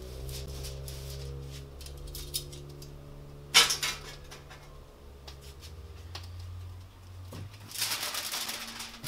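Aluminium foil crinkling as it is folded around a smoked brisket, starting near the end, after light clicks of tongs on the foil and one sharp clack about three and a half seconds in, the loudest sound. A steady low hum runs underneath.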